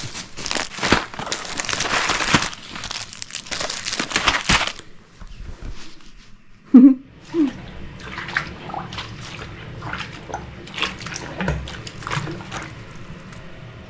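Plastic snack packaging crinkling and crackling as it is handled, cutting off abruptly about five seconds in. After that come scattered light clicks and knocks, with one short loud pitched sound near the middle.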